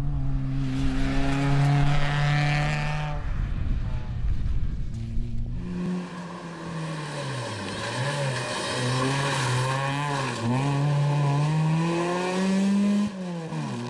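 Ford Fiesta rally car's four-cylinder engine held at high, steady revs through a hairpin. A second rally car's engine follows, its revs dipping and climbing with gear changes, then rising steadily as it approaches and dropping sharply near the end.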